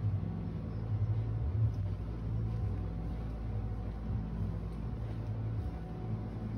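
Steady low machine hum with a deep drone.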